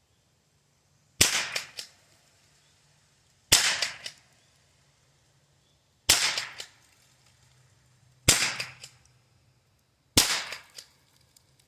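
Henry H003T pump-action .22 LR rifle fired five times, about two seconds apart, each sharp crack followed by a short echo.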